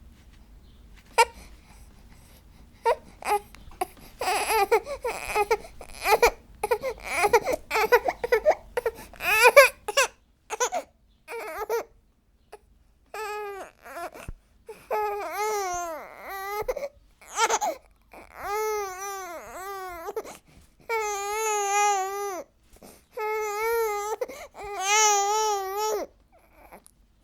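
Baby crying: short, choppy fussing sounds at first, then, from about halfway through, a run of long wails, each about a second, with short breaths between.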